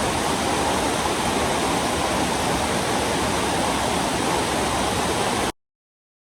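Heavy rain falling as a dense, steady rush. It cuts off abruptly about five and a half seconds in.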